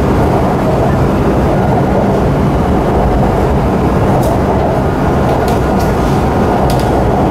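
Shanghai Metro Line 9 train running at speed, heard from inside the carriage: a steady, loud rumble of wheels and motors with a faint high steady tone over it, and a few light clicks in the second half.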